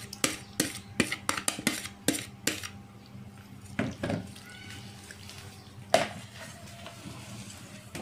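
A quick run of knocks and scrapes, about three or four a second, as marinated chicken pieces are scraped from a plastic bowl into a non-stick wok. A few softer scrapes of a silicone spatula stirring the wet chicken follow, with one last sharp knock about six seconds in.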